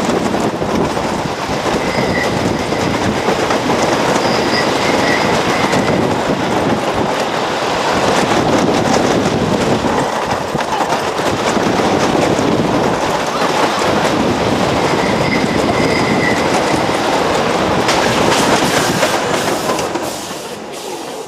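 Wooden roller coaster train running along its wooden track: a loud, steady clattering rattle of the wheels, with brief high wheel squeals twice. The noise eases off near the end.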